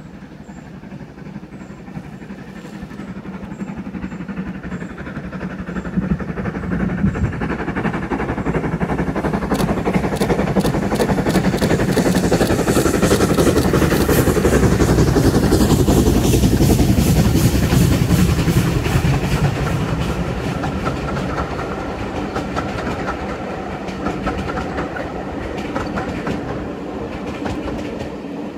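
GWR 4200-class 2-8-0 tank engine No. 4277 working uphill with a train of coaches: its steam exhaust beats grow louder as it approaches, peak as it passes about halfway through, then the coach wheels clatter over rail joints and the sound fades as the train pulls away.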